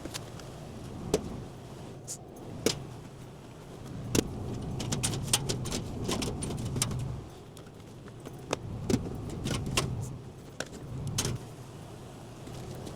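A series of sharp clicks and knocks, with a low rumble that swells and fades several times.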